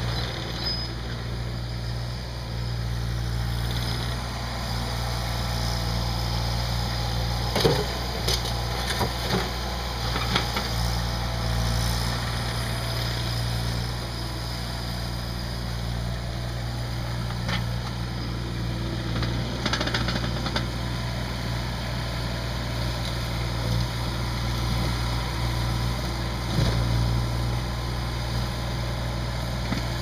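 Ditch Witch SK650 mini skid steer's engine running steadily as it works, with a few sharp knocks and clanks scattered through as broken concrete slabs hit and scrape the steel bucket.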